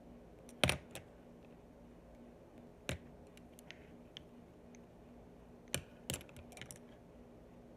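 Makeup brushes being handled: a few sharp clicks and taps as the brush handles knock against each other and the holder, a couple of seconds apart, with a quick run of lighter ticks about six seconds in.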